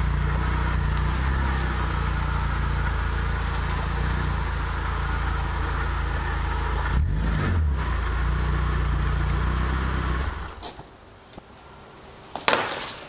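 A BMW E36 3 Series sedan's engine running steadily at idle. It rises briefly in pitch about seven seconds in, then settles and stops after about ten seconds. A single sharp knock follows near the end.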